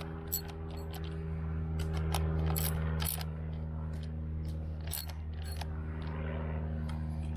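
Socket wrench on a long extension running in the bolts of an outboard's lower unit, with irregular sharp metallic clicks and clinks. A steady low motor hum sounds underneath.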